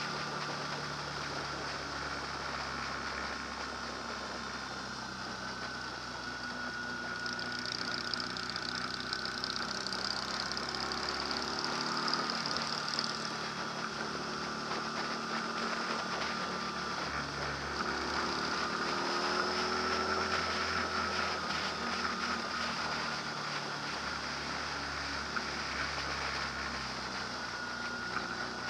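An engine running steadily, its low hum shifting slightly in pitch a couple of times, with a faint wavering whine above it.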